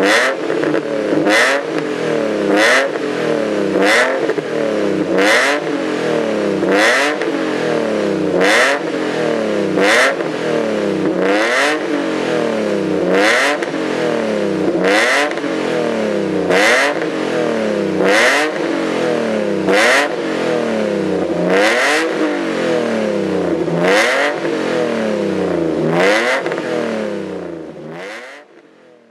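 Alfa Romeo GTV 3.0 V6 engine free-revved through a one-off stainless steel exhaust with an exhaust control valve: about twenty quick throttle blips, each a sharp rise and fall in pitch, roughly one every one and a half seconds, fading out near the end.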